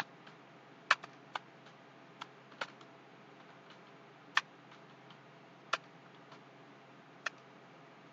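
Computer keyboard keys pressed one at a time at irregular intervals, about a dozen sharp clicks spread over the stretch rather than a run of fast typing, over a faint steady hiss.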